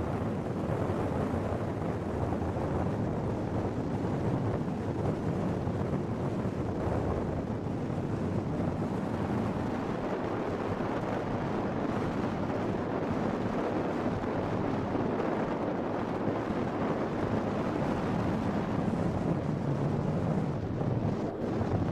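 Steady rush of wind over the microphone and road noise from a moving car, heard from the car's open window.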